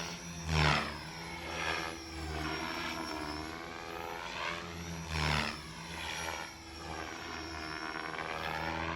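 Beam Archon 500 electric RC helicopter flying 3D aerobatics: the rotor and motor whine sweeps down and back up in pitch over and over as it swoops and passes, with a steady high whine above it. It swells loudest twice, about a second in and again near the middle.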